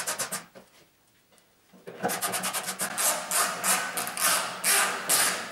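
A hand ratchet clicking as the Torx screws of a new tailgate lock are driven in. A fast run of rasping clicks ends about half a second in. After a pause, a second run of strokes starts and slows to about three a second.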